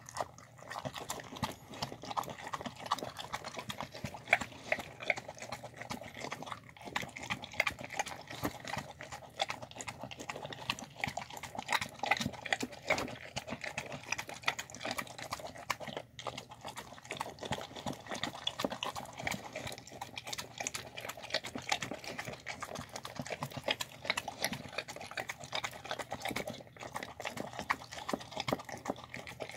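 A dog eating a rice meal out of a bowl: a dense, continuous run of chewing and mouth-smacking clicks, broken by a few short pauses.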